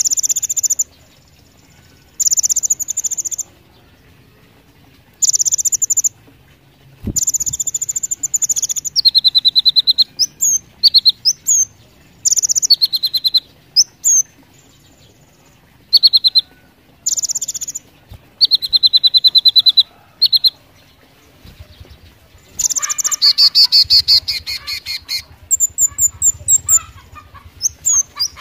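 Kolibri ninja (Van Hasselt's sunbird) singing loudly: a string of very high, rapid buzzy trills, each about a second long with short pauses between, broken by brief sharp whistled notes. The song turns denser and nearly continuous near the end.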